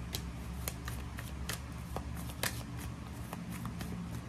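A deck of oracle cards being shuffled by hand, the cards flicking against each other in irregular soft clicks, several a second.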